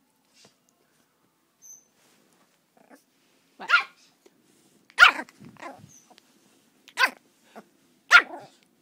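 Pomeranian barking close up: four loud, short barks about a second apart, starting a few seconds in, with a few softer sounds between them.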